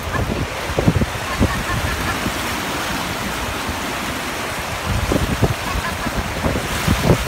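Shallow ocean surf washing and fizzing over the sand, a steady rush, with gusts of wind rumbling on the microphone near the start and again from about five seconds in.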